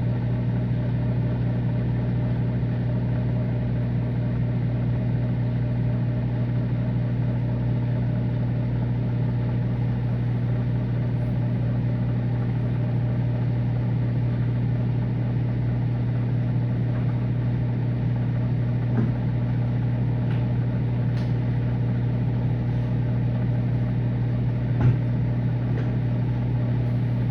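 Microwave oven running with a steady low hum while it heats a load of Gushers candies that are melting and bubbling. Two faint ticks come through, one about two-thirds of the way in and a sharper one near the end.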